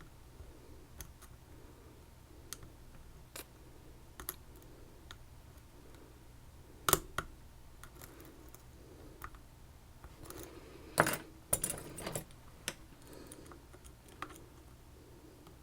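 Small metallic clicks and taps of tools working in an Assa Twin 6000 lock cylinder, scattered and irregular over a faint hum, with a louder sharp click about seven seconds in and a cluster of louder clicks around eleven to twelve seconds.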